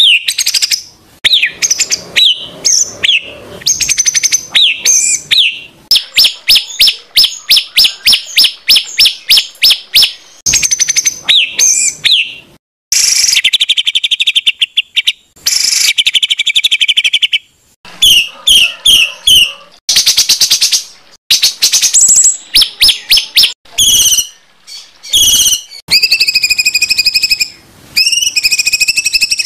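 Songbird singing loud, varied phrases: whistled glides, a long run of fast repeated sharp notes, then harsh buzzy stretches and short repeated calls with brief pauses. This is the kind of rough rapid-fire song ('tembakan kasar') that competition-bird keepers play for their birds to copy.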